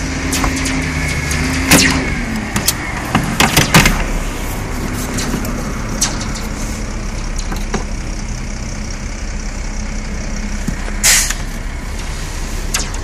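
Electric standing-seam roof seamer running with a steady motor hum, closing a metal panel seam at stage 2, with sharp metallic knocks and clanks about 2 s, 3 to 4 s and 11 s in.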